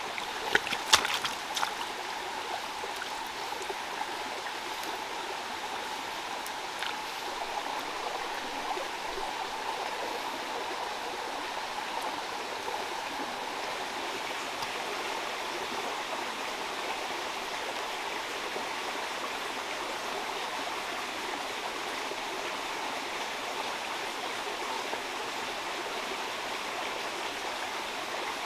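Steady rushing of flowing stream water, with a few sharp splashes of hands in shallow muddy water about a second in.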